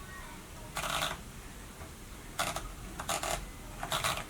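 Platen mechanism of a 1937 Erika M portable typewriter being turned by hand: about four short bursts of rapid rattling clicks, about a second apart.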